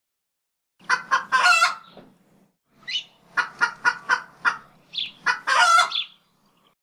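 Chicken clucking: short clucks in quick runs, broken by a few longer squawking calls.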